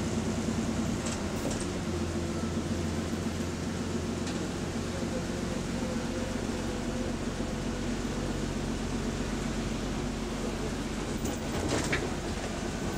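Inside a moving bus: the engine's steady drone under road and tyre noise, its pitch shifting slightly in the first few seconds, with a brief knock near the end.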